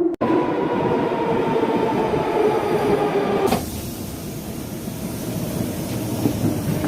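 Moscow Metro train running between stations, heard from inside the carriage: a steady rumble and rattle with a motor whine that sinks slightly in pitch. About halfway through the whine stops and a steadier hiss takes over.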